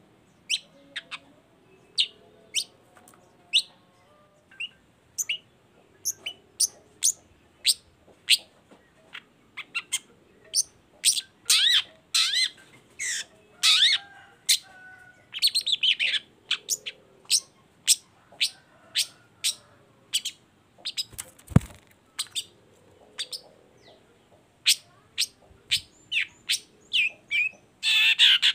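Long-tailed shrike singing: a fast series of short, sharp chirping notes broken by several denser, scratchy bursts of song. About two-thirds of the way through there is a single sharp knock.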